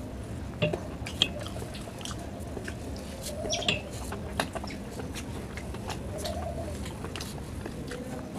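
Close-up eating by hand: chewing and wet mouth smacks with sharp clicks, while a pigeon coos several times in short, arching calls.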